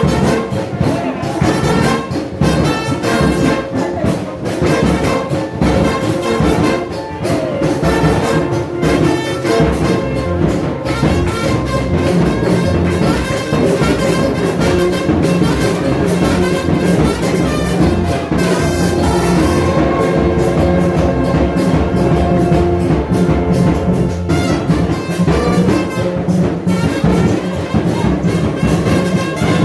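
Brass band music: trumpets and trombones playing sustained chords over a steady percussive beat.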